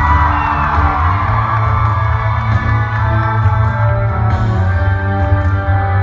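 Live band music with heavy bass and sustained chords, with audience whooping and cheering over it during the first couple of seconds.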